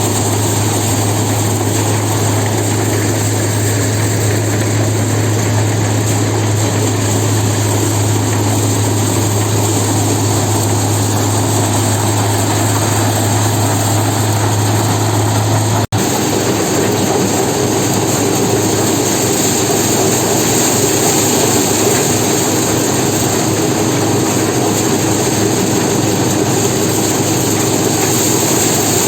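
A heavy engine-driven machine running loud and steady. It drops out for an instant about halfway through, then carries on with a higher hum in place of the deep one.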